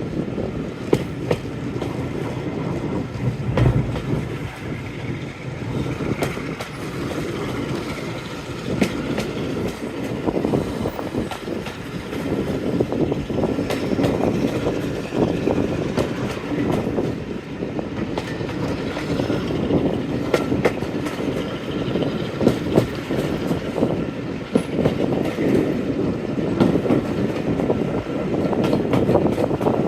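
Train hauled by a Class 45 diesel locomotive on the move: a steady running rumble with repeated sharp clicks of wheels over rail joints.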